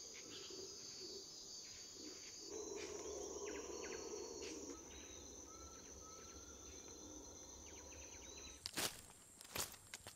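Rainforest insects droning in steady high-pitched tones. Near the end, footsteps crunching through dry leaf litter.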